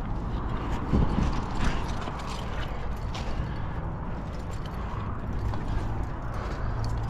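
Light irregular clicks and scrapes of a climber moving up a granite crack: hardware jangling on the harness and hands and shoes scuffing the rock, over a steady low rumble.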